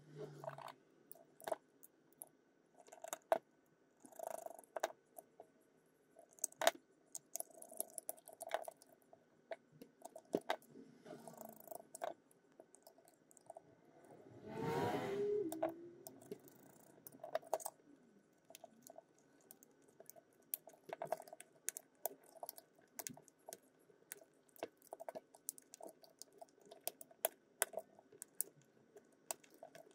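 Small clicks, taps and handling noises from a precision screwdriver, tweezers and the plastic parts of Bose QC35 headphones being reassembled. About halfway there is one longer, louder scrape.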